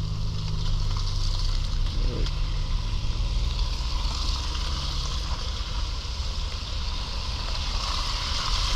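Road traffic: a vehicle engine's low hum that eases after about three seconds, over a steady hiss of tyres on the road.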